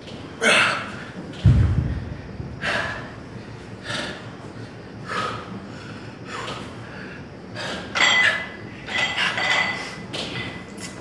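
A person breathing out hard in short forceful puffs, repeating about every second and a quarter, as during exercise reps, with one dull thud about a second and a half in.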